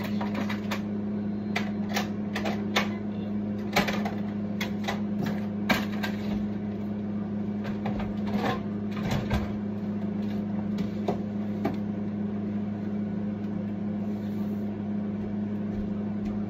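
A steady low hum throughout, with a scattered run of light clicks and knocks over roughly the first twelve seconds, then only the hum.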